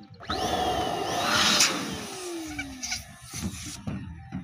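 Electric balloon pump blowing a latex balloon full: a rushing of air for about three and a half seconds with a tone that slides slowly downward as the balloon fills, then it stops.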